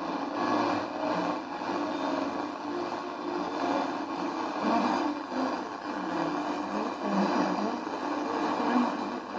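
Homemade radio receiver's loudspeaker giving out a steady rush of static with a faint wavering tone, while the variable capacitor of its front-end RF tuner is turned to search for a signal.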